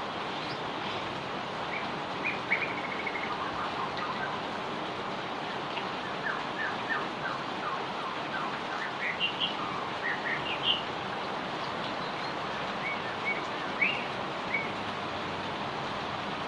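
Heavy rain falling steadily, with small birds chirping through it in short runs of quick high notes.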